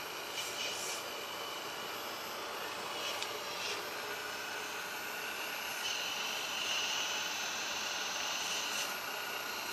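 Hydraulic pump of a 1:12 RC excavator running with a steady whine and hiss as the boom and bucket move. The whine grows louder about six seconds in, with short surges of hiss along the way.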